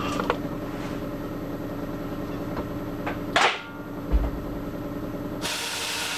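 Sandblast cabinet at work on hot-rolled steel, over a steady machine hum. A short burst of blasting hiss comes about three seconds in, then a low thump. A sustained loud blast hiss starts near the end and stops abruptly.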